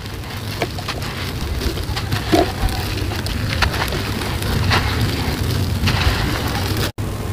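A dry, gritty sand-and-cement block crushed and crumbled between the hands: continuous gritty crunching, with many small sharp cracks as grains and lumps break off and fall onto loose sand. The sound breaks off briefly near the end.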